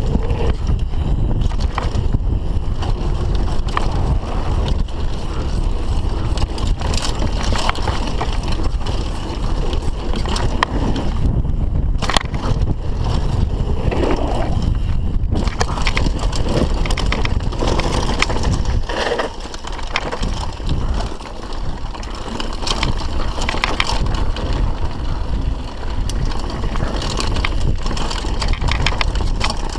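Mountain bike ridden fast down a rough dirt trail: a steady heavy rumble of tyres and suspension over dirt and rocks, with sharp rattles and knocks from the bike, easing a little about two-thirds of the way through.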